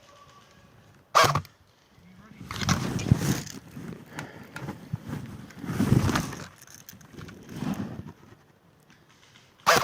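CYMA M14 airsoft electric rifle firing two single shots, one about a second in and one near the end, each short and sharp. Between them come several seconds of rough rustling noise that rises and falls.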